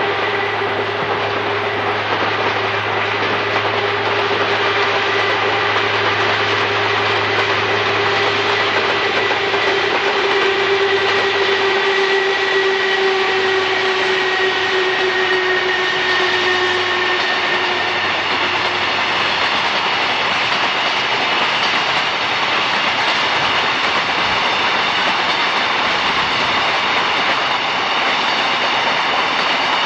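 Electric train running on the line, wheels clattering over rail joints with a steady rush of noise. A steady whine sinks slowly in pitch and fades out a little over halfway through.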